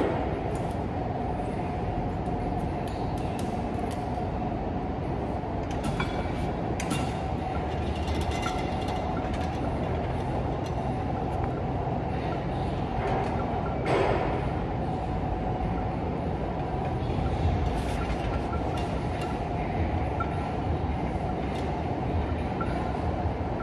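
Weight-stack exercise machine in use: a steady rumble with a faint hum, and a few light metallic clinks now and then.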